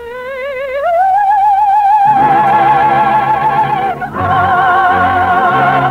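A high operatic voice, a soprano, sings a long held note with wide vibrato, sliding up into it at the start, as orchestral accompaniment comes in underneath about two seconds in. After a brief break about four seconds in, she holds a second, slightly lower note with the same vibrato.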